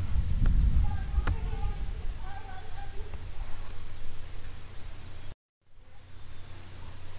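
Cricket chirping in a steady, rhythmic series of high pulses, a few per second, over a low background hum. The sound cuts out completely for a moment about five seconds in.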